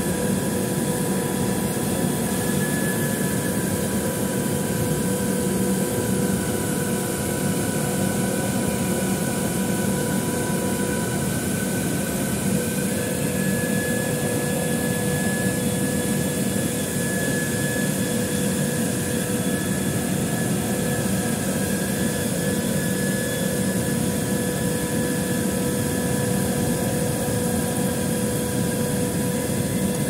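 Running chiller air-conditioning unit: a steady machine whir with several steady whining tones over it.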